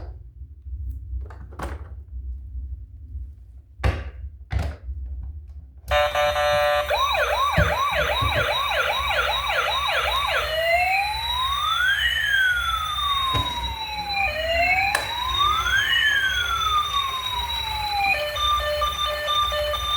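Electronic siren sound from a battery-powered toy emergency vehicle. It starts suddenly about six seconds in with fast repeating yelps, changes to a slower rising-and-falling wail, and turns into steady beeping tones near the end. Before the siren there are a few clicks and knocks from handling the toy.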